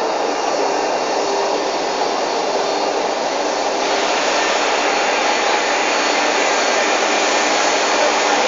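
Steady, loud rushing noise of machines and fans running, with a few faint steady hums underneath. It grows slightly brighter about four seconds in.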